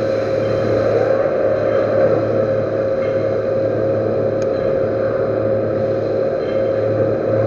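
Metal lathe running steadily with its spindle turned down to a low speed: a constant hum with a steady whine over it.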